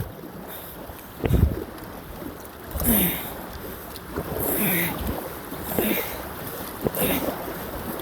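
Kayak paddle strokes splashing through small river rapids, a splash about every second and a half over a steady rush of water.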